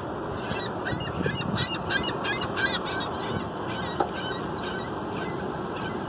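A flock of gulls calling: a quick run of short, high cries over about three seconds, then a few scattered calls, over a steady low background noise. A single sharp knock about four seconds in.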